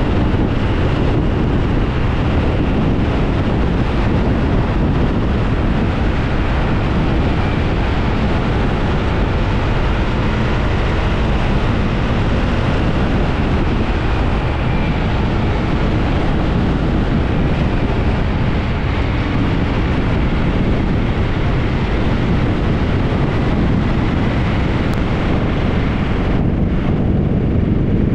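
A motorcycle being ridden, its engine running under a steady rush of wind on the microphone. Near the end the higher part of the hiss drops away.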